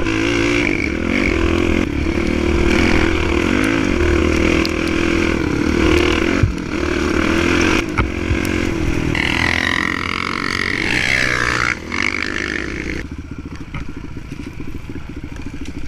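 Dirt bike engine running hard on a rough trail, its pitch rising and falling with throttle and gear changes, with a couple of sharp knocks from the bike over rough ground. About 13 s in the throttle closes and the engine drops to lower, quieter revs.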